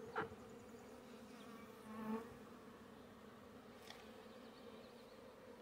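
Faint, steady buzzing hum of a honeybee colony in a freshly opened nuc box, with a brief rustle just after the start and a short louder buzz about two seconds in.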